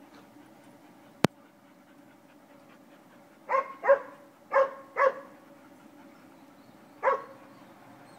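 A dog barking five times: four quick barks in a burst of about a second and a half around the middle, and one more about two seconds later. A single sharp click comes a little over a second in.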